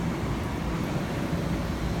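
Long Island Rail Road M7 electric train giving a steady low rumble with a faint even hum, and no wheel squeal.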